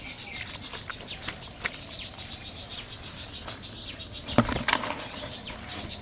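Insects chirring steadily in the background, with scattered short clicks and a brief louder clatter of knocks about four and a half seconds in.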